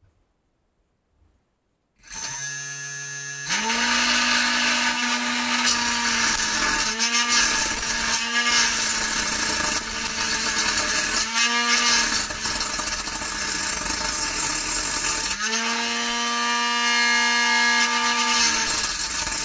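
Combat robot's small-toothed saw blade, driven by a 2814 brushless motor, spinning up about two seconds in with a rising whine, then running loud with a harsh grinding noise. Its pitch sags and recovers several times, the motor bogging briefly as the blade bites.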